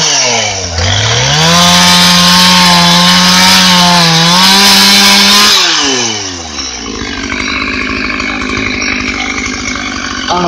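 Chainsaw engine revved up to full throttle and held there for about four seconds, its pitch wavering slightly, then dropping back to a steady idle about six seconds in.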